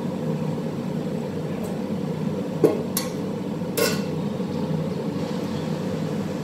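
A stainless steel cooking pot clanking twice against metal, a little over a second apart, the first with a short ring, over a steady low hum.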